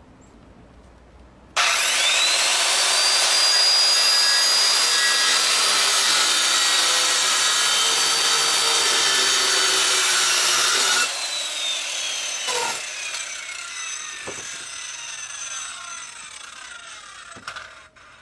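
Circular saw starting up about a second and a half in, its whine rising quickly to full speed, then cutting through a wooden board for about nine seconds. The trigger is then released and the blade winds down with a long falling whine, with a couple of knocks.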